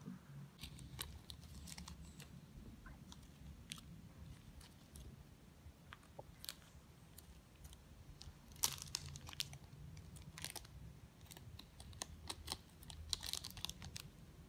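Small clear plastic candy bags crinkling and rustling in the hands as pieces of nougat are slipped into them, in faint scattered crackles with louder bursts about two-thirds of the way through and near the end.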